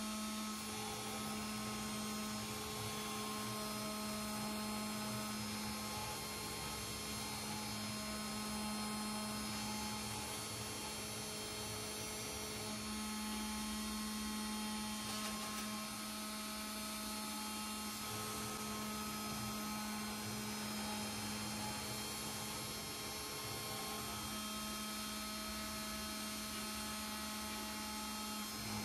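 CNC 3018 Pro router engraving acrylic: its 775 DC spindle motor runs with a steady hum while the V-bit cuts letters. Fainter higher tones start and stop every few seconds as the stepper motors move the axes.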